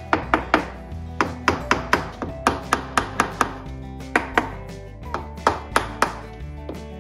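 A soft-faced mallet repeatedly tapping a motorcycle engine's cam cover, in quick runs of several sharp knocks. It is breaking the cover free of its tightly sealing gasket. Background music plays underneath.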